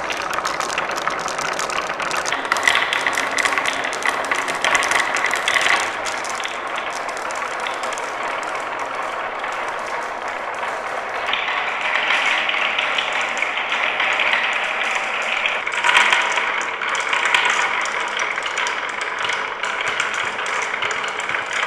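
Many marbles rolling and clattering down a marble run's tracks: a continuous rolling rattle thick with small clicks and knocks, with a louder burst of clicks about sixteen seconds in.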